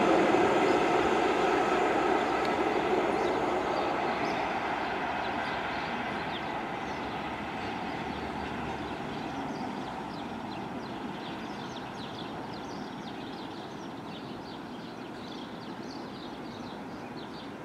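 CrossCountry HST moving away along the main line: the Class 43 power car's diesel engine and the rail noise fade steadily into the distance.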